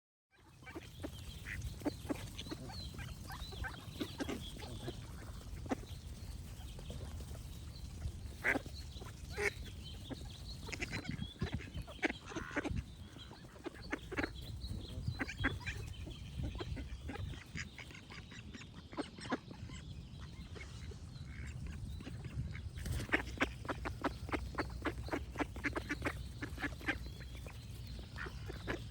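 Ducks quacking in irregular runs of short calls, thickest near the end, with birds singing faintly and a steady low rumble underneath.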